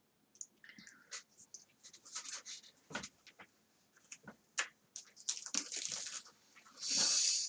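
Light handling noises: scattered small clicks and rustles of hands working with food on a table, with a louder, brief rustle about seven seconds in.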